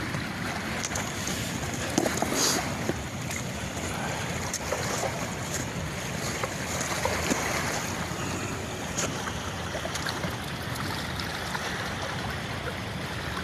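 Steady rush of water pouring over a dam spillway, with a few scattered clicks and knocks, the loudest about two seconds in.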